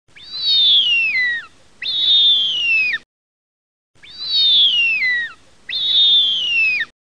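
Bird-of-prey scream sound effect: four loud, high screeching calls that each slide down in pitch, in two pairs, the same pair played twice with a short silence between.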